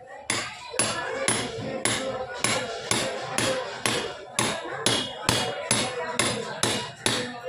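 Hammer blows, about fifteen evenly spaced strikes at roughly two a second, driving a new coupling bush into the base of a mixer-grinder jar to seat it.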